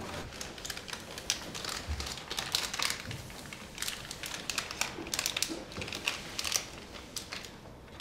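Small wrapper or packaging crinkling in a person's hands: quick, irregular crackles.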